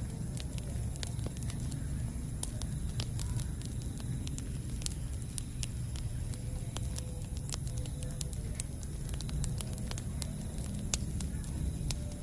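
Campfire burning: a steady low rumble of flames with frequent sharp, irregular crackles and pops of burning wood.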